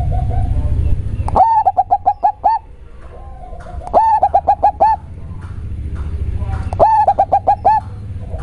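Local zebra dove (perkutut) cooing in a deep, bassy voice: three phrases, each a quick run of short coo notes lasting about a second, with pauses between.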